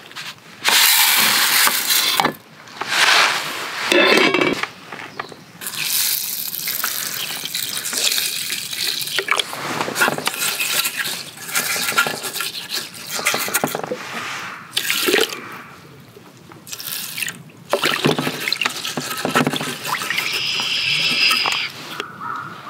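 Rice being washed by hand in an aluminium mess tin: water pours in and sloshes as fingers stir the grains. It comes in several splashy bursts with short pauses between them.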